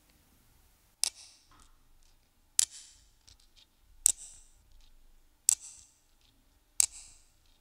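Five sharp metallic clicks at an even, slow pace, about one and a half seconds apart, each followed by a short high ringing tail.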